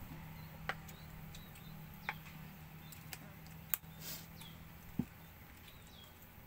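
Quiet outdoor background with a faint steady low hum, a few isolated sharp clicks and taps from hands and utensils at a meal eaten off a banana leaf, and a couple of short high bird chirps, one falling in pitch.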